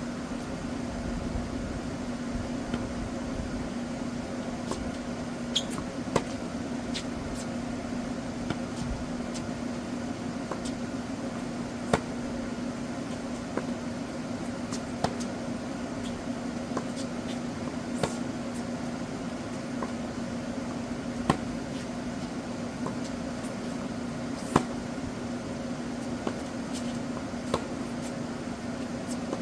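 Tennis balls being struck in a rally: sharp, single hits every couple of seconds, some louder than others, over a steady mechanical hum.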